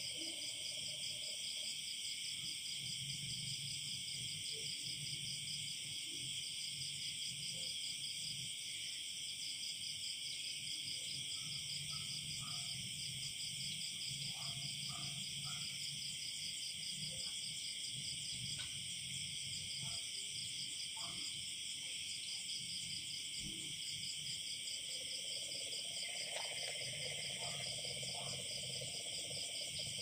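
Night chorus of crickets, a dense, steady, pulsing high trill, with low frog calls now and then and a longer low call a few seconds before the end.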